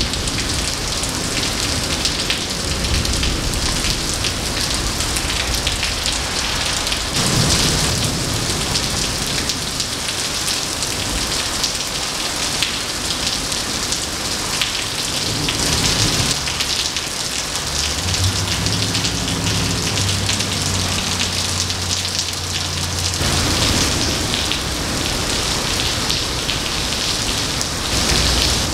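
Heavy rain pouring onto wet pavement, a steady dense hiss that swells and eases. A low rumble sits under it for a few seconds past the middle.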